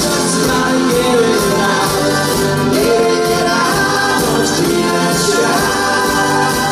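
Live pop band with guitars, piano and drums playing a song, with a man singing lead into a microphone.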